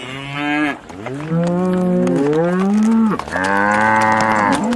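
Cattle mooing: three long moos one after another, the middle one longer, with its pitch gliding and a second voice overlapping it.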